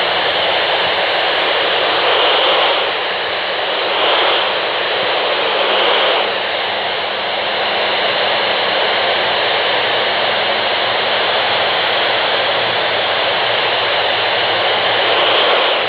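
Steady hiss of an FM radio receiver on the AO-91 (Fox-1B) satellite's 145.96 MHz voice downlink, open-squelch static with no voice coming through. The hiss swells briefly a few times in the first six seconds and again near the end.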